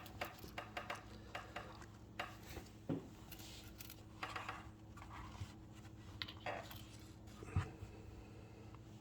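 Faint handling noise as a Leatherman Super Tool 300 multi-tool is taken out of its sheath and packaging: scattered small clicks, light metallic clinks and brief rustles.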